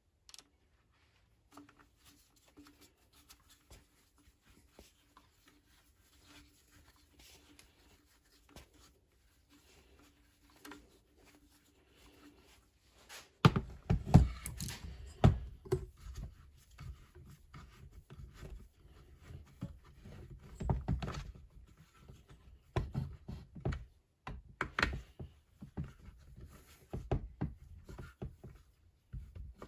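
Handling noise from fitting Farmertec MS660 clone chainsaw parts together by hand: scattered clicks, knocks and thunks of plastic and metal parts. Sparse and faint for the first half with a faint steady hum, then louder and busier from about halfway.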